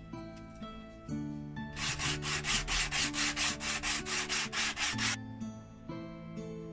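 Sandpaper block rubbed back and forth along the edge of a thin wooden model part, in regular strokes about four a second for some three seconds, starting about two seconds in. Soft background music plays underneath.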